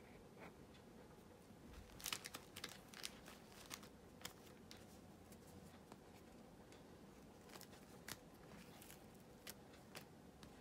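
Spring roll wrapper sheets being peeled apart off a stack in their plastic package: faint, scattered crackles and rustles, bunched in two spells, over a low steady room hum.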